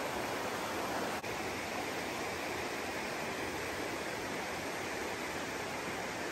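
Steady rush of a forest creek's flowing water, an even hiss that dips briefly about a second in.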